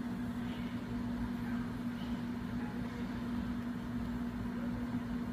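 Steady low background hum with one constant tone and low rumble, unchanging throughout; no distinct events.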